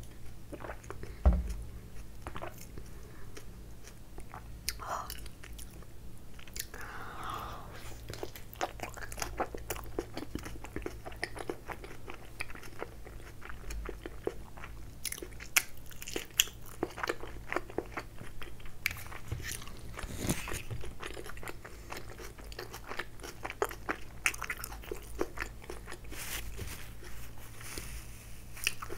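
Close-miked biting and chewing of a chicken tikka wrap, with many small moist clicks and crunches. There is a single thump about a second in.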